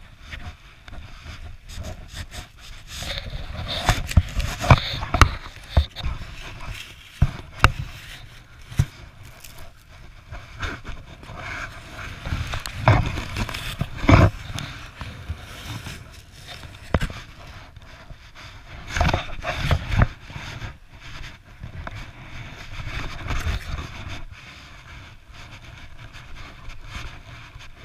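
Plastic sled scraping and bumping over snow, with irregular knocks and the rustle of snow and snowsuit fabric right against the camera. The sound comes in several louder bursts.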